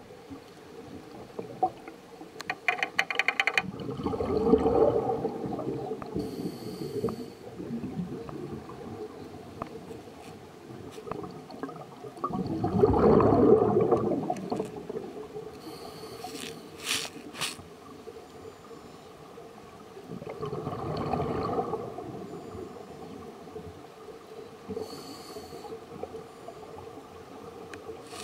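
A scuba diver breathing through a regulator underwater: three long bubbling exhalations about eight seconds apart, with short hissing, clicking sounds between them.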